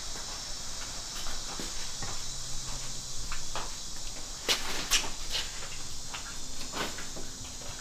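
Garage room tone: a steady high hiss with a few light clicks and knocks, the sharpest about four and a half, five and seven seconds in.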